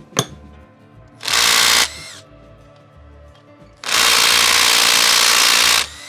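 Power tool run in two bursts: a short one about a second in that winds down with a falling whine, then a longer one of about two seconds near the end, with a click just before the first. The tool is being used on the bolts of the motorcycle's rear brake caliper to get it off.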